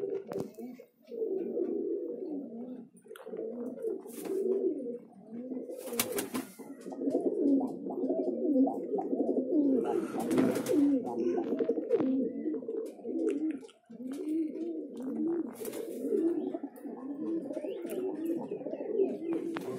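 A loft full of domestic pigeons cooing, many birds at once in a continuous, overlapping low cooing, with a few brief sharp clatters among them.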